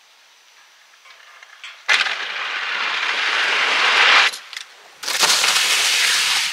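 Ski jumper's skis running down the inrun track of a small summer ski jump: a sudden start, then a rushing hiss that grows louder for about two seconds and cuts off sharply at takeoff. About a second later the skis land suddenly on the plastic-matted landing slope and slide out in a second loud rush.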